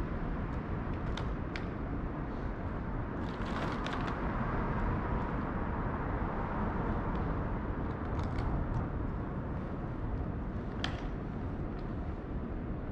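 Steady low outdoor background noise, with a few faint sharp clicks: a small cluster about four seconds in, another around eight seconds, and a single click near eleven seconds.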